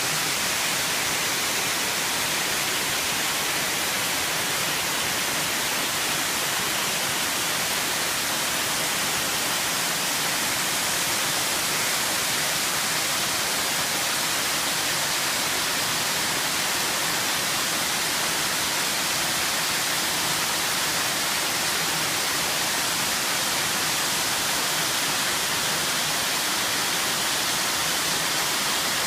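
Small spring-fed waterfall of groundwater cascading, a steady, even rushing hiss that is strongest in the high range.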